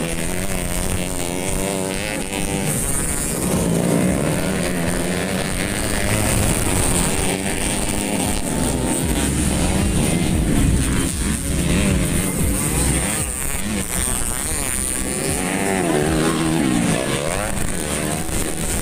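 Several modified underbone-class grasstrack motorcycles racing on a dirt track, their engines revving, the pitch rising and falling as the riders accelerate and back off.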